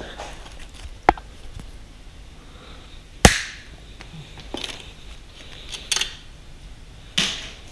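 Zip ties being snipped through: about five sharp snaps spread irregularly over several seconds, the loudest about a third of the way in.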